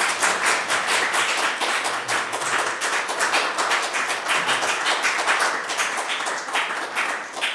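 Applause from a small audience: many hands clapping densely, easing off near the end.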